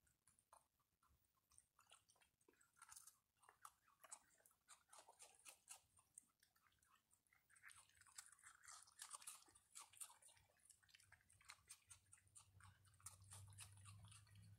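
Raccoons chewing and crunching dry food, faint: a rapid, uneven run of crisp crunches and smacks. A low steady hum comes in near the end.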